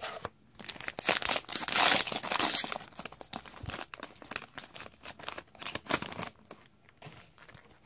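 Trading-card pack wrapper being torn open and crinkled by hand, the crackling loudest about two seconds in, then thinning to scattered light crinkles.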